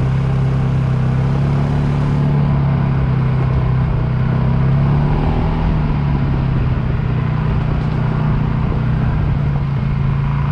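Polaris Sportsman 570 ATV's single-cylinder engine running steadily at trail-riding speed, heard close up from the machine carrying the camera, its pitch dipping and rising slightly a couple of times.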